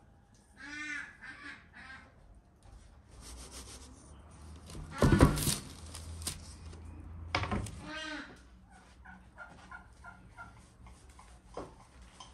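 Poultry calling in short arched calls, three in quick succession about a second in and again about eight seconds in. Between them, paper rustles and a loud knock sounds about five seconds in as the calzone is slid off a wooden pizza peel onto a parchment-lined metal baking tray.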